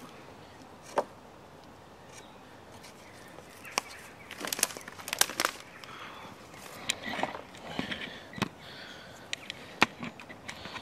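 Scattered sharp clicks and knocks with rustling, a dense cluster of them about halfway through, as someone moves about close by. Near the end, handling noise from the camera being picked up.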